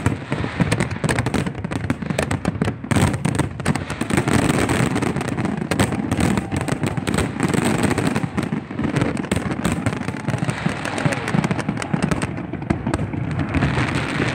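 Fireworks display going off as a continuous barrage, with many bangs and crackles overlapping and no gap between them.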